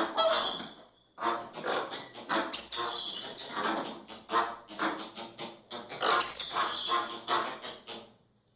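American flamingo calls: a rapid run of harsh, closely packed call notes, with a brief break about a second in and a fade near the end.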